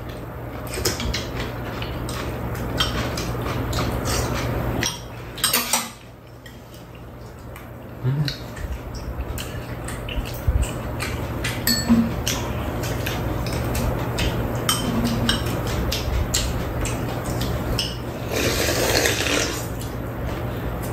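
Metal spoons and chopsticks clicking and scraping against ceramic bowls as two people eat, with a spell of slurping near the end, over a steady low hum.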